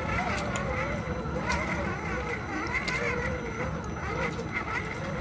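RC crawler's electric motor and gears whining, the pitch wavering up and down as the throttle is worked over rocks, with scattered sharp clicks.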